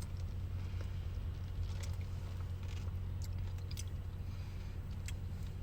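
Faint sipping and mouth sounds of someone drinking an iced latte through its cold foam, with a few small clicks, over a steady low hum of a running car engine.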